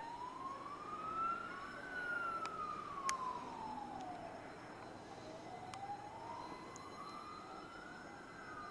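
Emergency vehicle siren on a slow wail, rising and falling twice in about six-second sweeps. A few sharp cracks come in between, the loudest about three seconds in.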